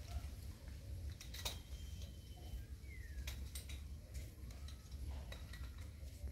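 Faint scattered clicks and light clinks as a man climbs a coconut palm trunk with a tool belt, over a low steady rumble; a faint bird chirp about halfway.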